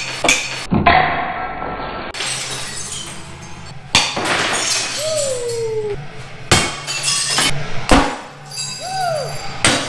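Glass bottles and dishes being smashed with a swung bat: repeated sharp crashes of breaking glass, a second or a few seconds apart, with background music.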